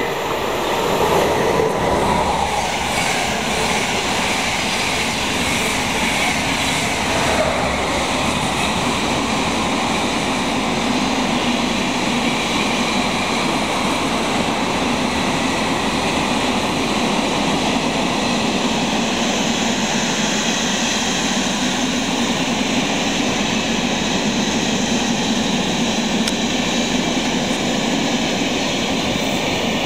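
Freight train passing at speed on electrified track: the electric locomotive goes by in the first couple of seconds, then a long string of covered hopper wagons rolls past with a steady, loud noise of wheels on rails.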